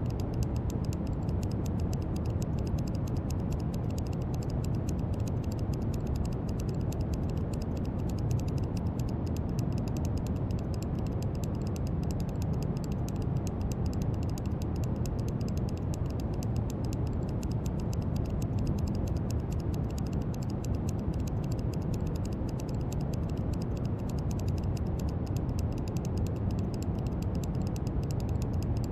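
Steady brown noise: an even, deep hiss weighted to the low end, unchanging throughout, with a faint fast crackle of tiny clicks in the treble.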